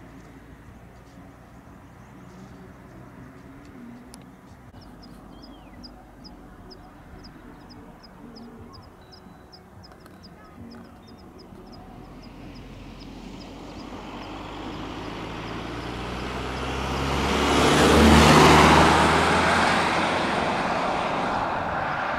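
A motor vehicle on the road approaching and passing close, its engine and tyre noise rising over several seconds to a peak about three-quarters of the way through, then fading. Before it comes, a faint run of quick high ticks over a low background.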